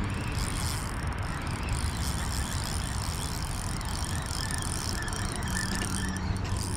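Steady wind noise rumbling on the microphone, with no distinct events.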